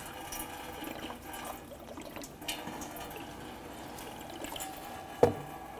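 Engine coolant trickling and dripping out of a just-disconnected hose at the oil cooler housing, with one sharp knock about five seconds in.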